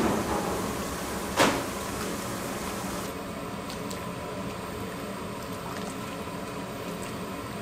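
A metal utensil clanking and knocking against a stainless steel pot while stirring greens blanching in water, with one sharp knock about a second and a half in. A steady kitchen hum runs underneath.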